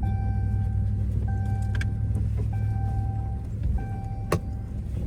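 Dodge pickup truck's engine running steadily with a low rumble, while a vehicle warning chime sounds four times as long, clear tones about a second apart. A single sharp click comes near the end.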